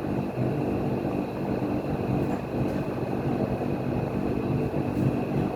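A motor or engine running steadily at constant speed, a low rumble with a steady hum.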